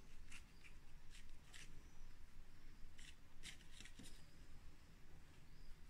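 A watercolour brush scrubbing in a pan of yellow ochre paint, picking up colour: several faint, short, scratchy rubs in two bursts.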